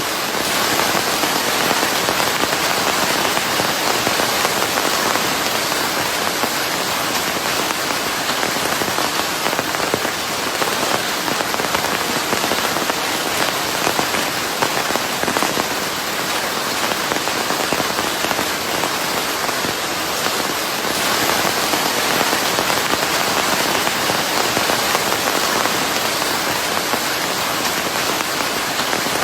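Steady heavy rain falling on a surface, a dense even hiss of many drops with no pauses or changes.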